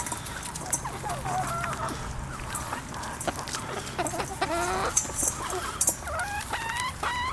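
Backyard hens clucking, with several longer pitched calls in the second half.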